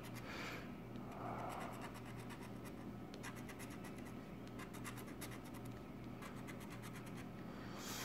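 A handheld scratcher tool scraping the coating off a scratch-off lottery ticket in quick, short, repeated strokes, over a faint steady low hum.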